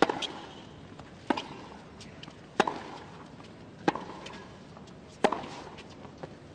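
Tennis ball struck back and forth by rackets in a baseline rally: five sharp hits, evenly spaced about 1.3 seconds apart, over low crowd hush.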